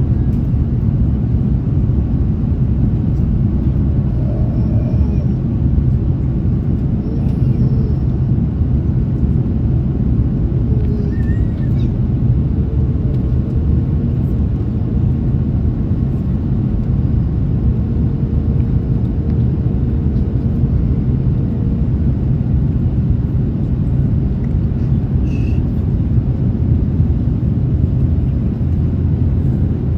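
Steady low rumble of aircraft cabin noise inside an Airbus A330-300, with a faint steady hum partway through.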